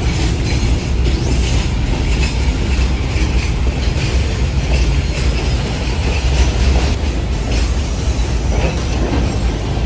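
Model train rolling past close by on its track: a steady low rumble with irregular clicking of the wheels over the rails.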